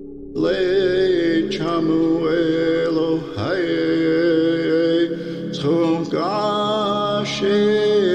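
Mantra-like chanting: a voice sings long held phrases, breaking every second or two, over a steady low drone.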